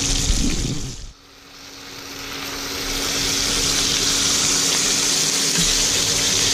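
Bacon-wrapped eye fillet steaks sizzling in butter in a hot frying pan, a steady hiss with a low hum underneath. The sound drops away about a second in and builds back up to a steady sizzle.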